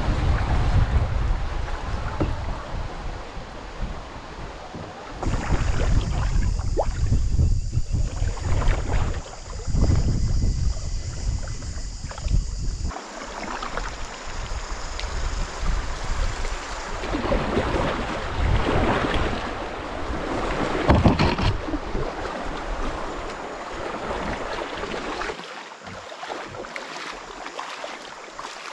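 River water rippling and splashing around an open canoe, with wind buffeting the microphone, strongest in the first half. A steady high-pitched drone runs through the middle stretch, and near the end come the splashes of feet wading through shallow water.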